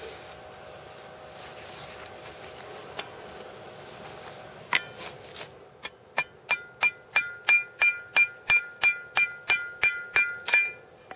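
Hand hammer striking the forged railroad-spike cross on a steel anvil: a single blow about halfway through, then a quick even run of about three blows a second, each with a ringing anvil tone.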